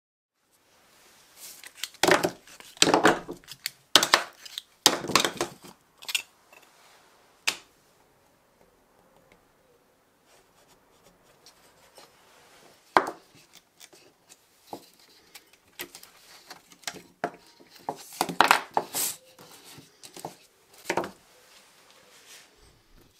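Handling knocks and clicks as a silicone mould is flexed open and the fresh white-metal casting is taken out and laid on the work surface. A cluster of sharp knocks comes in the first few seconds, then single clicks, and another cluster near the end.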